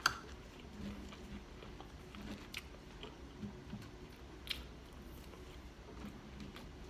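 A person chewing food close to the microphone, with a sharp smack right at the start and a few fainter crisp clicks of mouth sounds after it.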